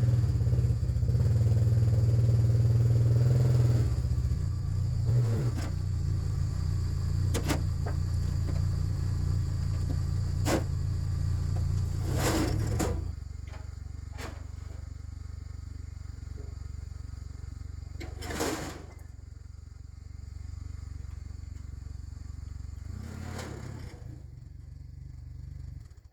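Four-wheeler (ATV) engine running as it drives off, louder for the first few seconds and then steadier and lower, with a few scattered knocks and clatters.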